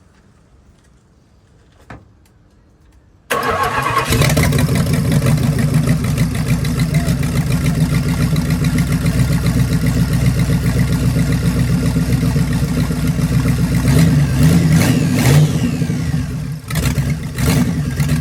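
Mopar 360 small-block V8 in a 1971 Plymouth Duster starting up about three seconds in and running loud and steady, with a rev or two near the end.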